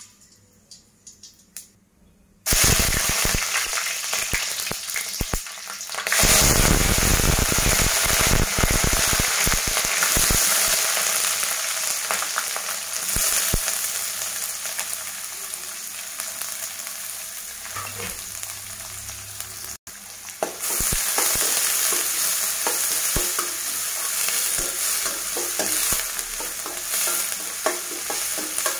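Chopped onions, green chillies and curry leaves frying in hot oil in a stainless steel kadai, a loud steady sizzle that starts suddenly about two seconds in and grows louder a few seconds later. Before it, whole spices crackle faintly in the oil; later a metal spatula stirs and scrapes against the pan.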